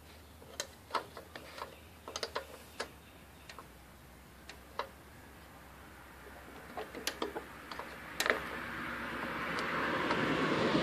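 Scattered light clicks and clinks of a wrench and loosened parts being handled as a two-stroke mower's carburetor is unbolted. A steady hiss rises over the last few seconds.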